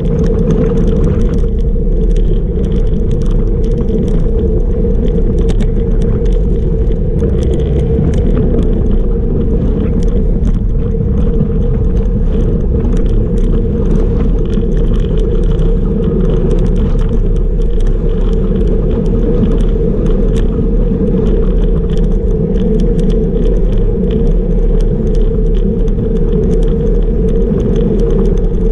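Steady, loud wind rush on the microphone together with the rumble of bicycle tyres rolling on asphalt at about 36 km/h.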